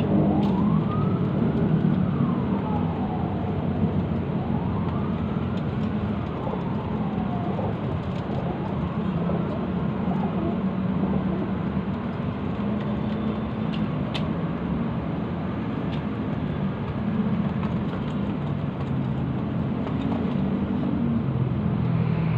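A siren wailing in slow rising and falling sweeps, fading out after about ten seconds, over a steady low hum.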